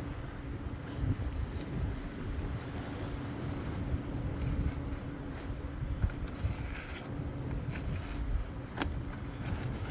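An engine idling steadily with a low, even hum, with scattered light scrapes and clicks from a skinning knife working a cattle hide off the carcass, the sharpest click near the end.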